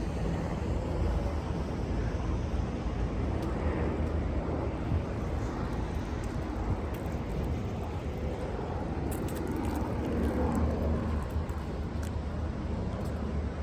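Steady rumble of city traffic, with faint scattered clicks.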